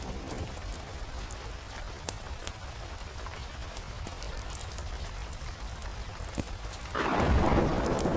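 Steady rain with scattered light ticks. About seven seconds in, a loud roll of thunder sets in and becomes the loudest sound.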